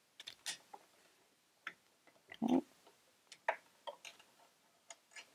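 Faint, scattered metal clicks and ticks of a small screwdriver loosening the screw on a sewing machine's metal needle plate, with one duller knock about two and a half seconds in.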